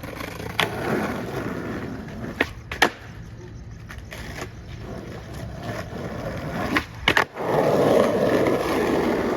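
Skateboard rolling on concrete, with a few sharp clacks of the board hitting the ground. The rolling grows louder near the end.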